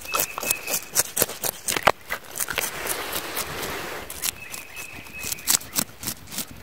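A rapid, irregular series of sharp clicks and knocks, with a short stretch of hiss about two seconds in.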